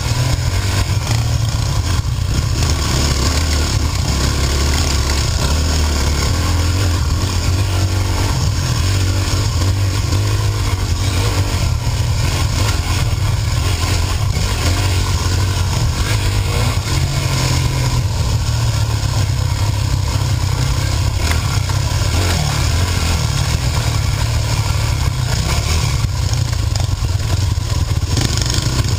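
Dirt bike engine running as it rides a trail, its pitch rising and falling with the throttle, over steady wind noise.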